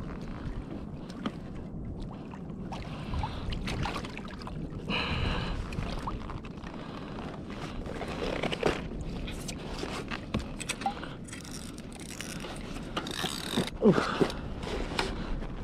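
Water splashing against a plastic kayak hull, with knocks and scrapes of fishing tackle, as a small yellowfin tuna is brought alongside the kayak. The sharpest knocks come about 14 seconds in.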